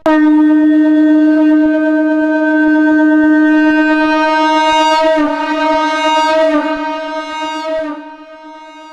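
A shankh (conch shell) blown in one long, loud blast on a note near D#, starting sharply. About five seconds in, the tone begins to waver, then it dies away near the end.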